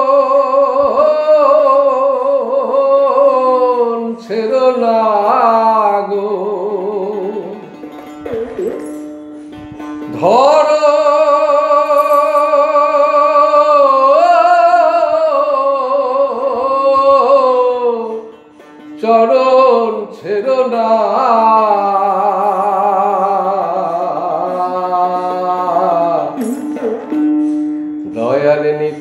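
A man singing long held, wavering notes in a devotional folk style, with a plucked string instrument sounding a steady drone. The voice drops away briefly twice.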